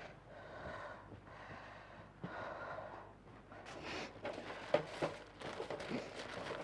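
Food being handled in a foil-lined baking tray: faint rustling, with a run of light clicks and crackles in the second half.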